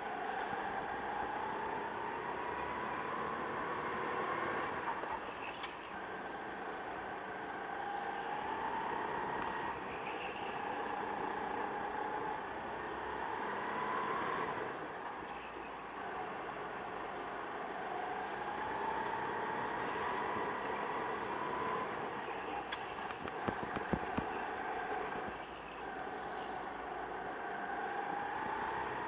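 Go-kart engine heard from on board, its note climbing steadily for a few seconds and then dropping back, about five times over, with the hiss of the kart running underneath. A brief cluster of sharp clicks or rattles comes about three-quarters of the way through.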